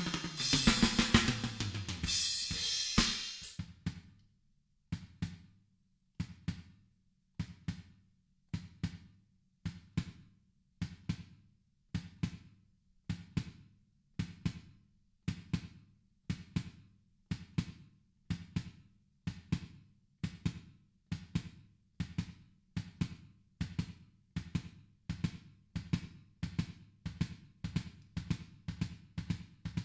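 Drum kit played hard with cymbals for about three seconds, the cymbals ringing off as it stops. After a short gap, a sparse repeating pattern of drum strokes in groups of two or three begins, spaced widely at first and settling to a little under two groups a second.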